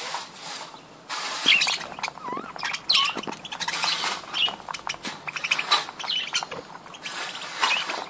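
Budgerigars chirping and chattering, a busy run of short, squeaky warbling calls with scattered clicks and rustles.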